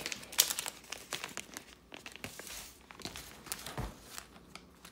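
Crinkly plastic packaging being handled, a run of quick crackles and rustles, busiest in the first second and again near four seconds in.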